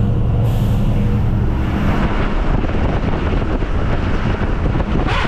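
Diesel truck engine running steadily as it drives, with wind and wet-road tyre noise that grows louder about two seconds in and covers the engine hum.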